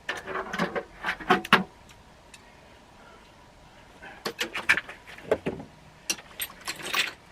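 Metal hand tools clinking and clattering as they are picked up and handled, in three short bursts of sharp knocks with quiet gaps between.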